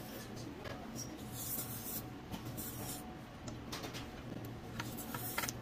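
Quiet eating sounds of chowmein noodles being chewed, with light scratchy scrapes and a few soft clicks of forks and spoons against the plates.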